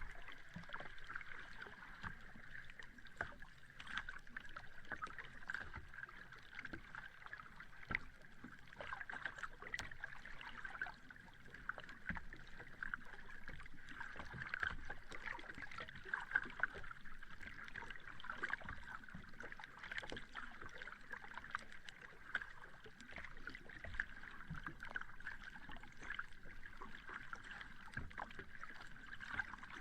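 Sea water lapping and gurgling at the shore, a steady wash full of small splashes and clicks, with no large wave surges.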